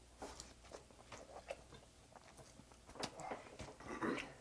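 Close-miked mouth sounds of a man chewing a mouthful of rice and braised dried pollack: soft wet smacks and clicks, a little louder about three seconds in.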